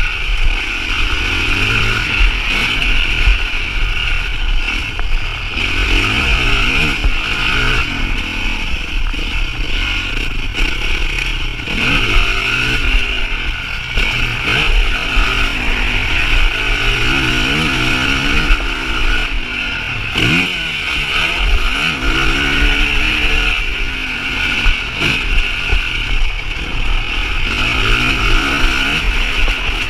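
Motocross bike engine revving hard and falling back again and again as it is ridden round a dirt track, its pitch climbing and dropping every few seconds, with a steady high hiss over it.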